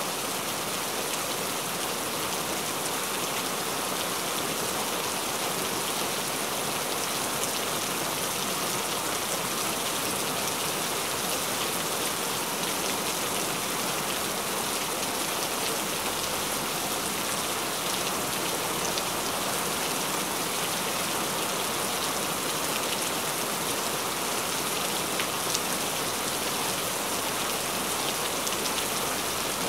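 Steady rainfall: an even, unbroken hiss with occasional sharper drop ticks.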